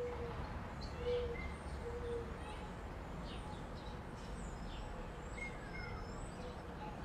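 Outdoor ambience of birds chirping and calling over a steady low hiss. Short low notes repeat about once a second in the first half, and scattered high chirps come throughout, with a falling whistle near the end.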